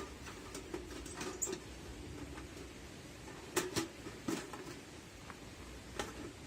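Light clicks and taps of wood stove parts being handled and fitted during assembly, with a few sharper clicks around the middle and one near the end.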